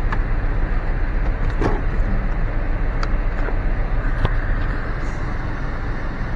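Steady low rumble and hiss inside a car with its engine running, with a few faint clicks.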